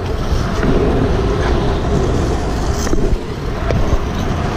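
Wind rushing over a chest-mounted camera's microphone and the rumble of a pro kick scooter's wheels rolling on asphalt, with street traffic around, and a few faint clicks.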